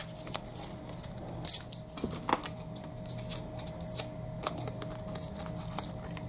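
Masking tape being pulled off the roll and torn, with short scattered clicks and rustles of handling.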